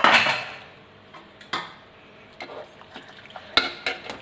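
Pressure cooker being opened: a sudden loud rush of noise that dies away within about half a second, then a few light metal clinks and knocks of the pot and lid.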